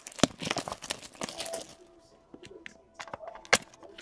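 Trading cards and their packaging being handled: crinkling and rustling with quick sharp clicks, busiest in the first two seconds, then a few sparse clicks and one louder snap about three and a half seconds in.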